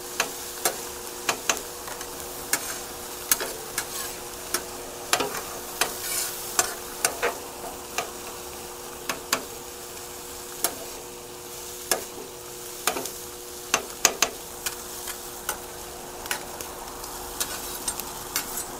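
Bacon and onions sizzling on a steel flat-top griddle, with sharp clicks and scrapes of metal spatulas chopping and turning the onions on the griddle plate, irregular, about one every second.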